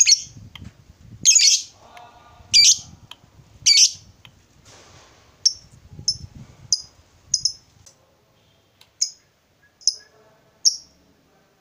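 Fischer's lovebird calling in sharp, high chirps. Four loud calls come about a second and a quarter apart, then a run of shorter, quieter chirps follows.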